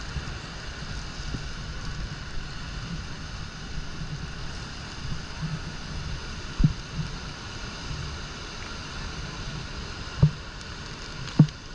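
Steady rushing of the rapids and Horseshoe Falls. Three brief low thumps break through: one about halfway through and two near the end.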